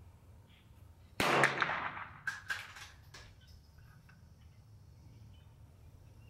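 A single shot from a 7.62x39 AR-pattern pistol with a 7.5-inch Bear Creek Arsenal upper, a sharp crack about a second in that rings out for about a second, followed by a few light clinks.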